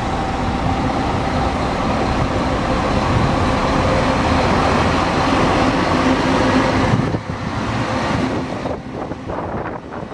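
Scania K400IB double-decker coach's rear-mounted diesel engine running with a steady hum as the bus drives slowly past. The sound drops off sharply about seven seconds in as the rear of the bus passes and it moves away.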